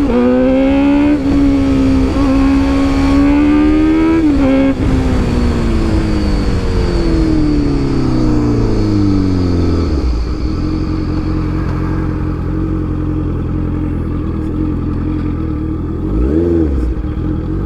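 Honda CBR650F's inline-four engine through an Arrow full-system exhaust, accelerating hard with the note climbing and briefly dipping at each upshift. The pitch then falls away steadily as the throttle closes and settles into a low, steady engine note. A short throttle blip comes near the end.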